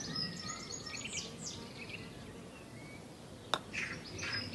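Birds chirping in the background, then a single sharp click of a putter striking a golf ball about three and a half seconds in.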